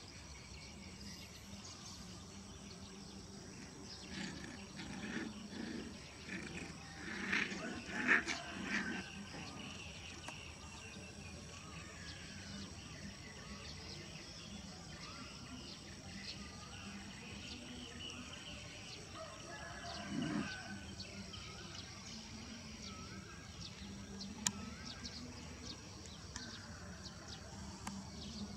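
Dogs giving short whines and grunts, loudest about eight seconds in and again briefly around twenty seconds, over a steady high trill of insects.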